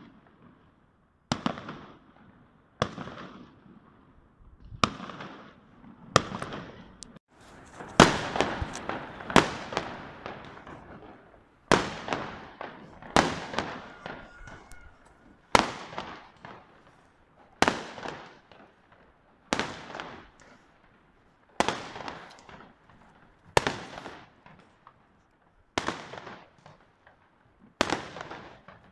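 Fireworks going off in a regular series of sharp bangs, roughly one every two seconds, each trailing away in a decaying echo. A denser stretch of crackling comes about a third of the way in.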